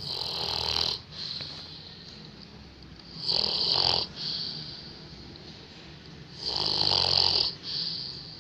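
A sleeping person snoring: three long, loud snores about three seconds apart, each followed at once by a shorter, quieter one.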